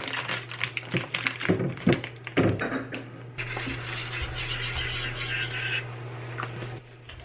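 A quick run of clicks and knocks from objects being handled for about three seconds, then a steady hiss for about two and a half seconds, over a constant low hum.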